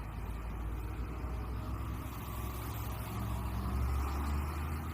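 Toy tour bus being rolled along, its wheels making a steady low rumble that grows a little louder near the end.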